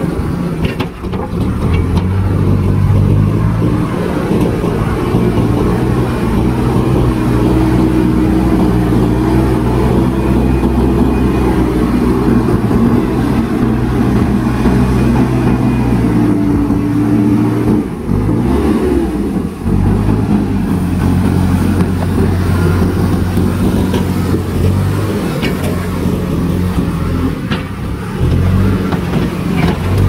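JCB backhoe loader's diesel engine running steadily under load while the front bucket works the soil. Its pitch dips and rises briefly about two-thirds of the way through, then settles again.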